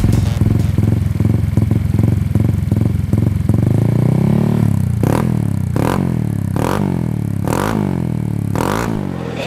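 Motorcycle engine running through a Shijiro aftermarket racing exhaust: idling steadily, then revved in five short throttle blips in the second half, each rising and dropping back.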